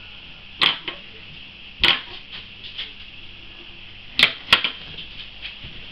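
Sharp clicks and taps of plastic containers being handled: four loud snaps, the last two close together, with lighter ticks between them.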